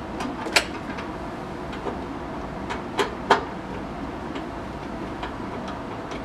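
A few short, sharp clicks and light knocks, the loudest about half a second in and a pair about three seconds in, over steady background noise.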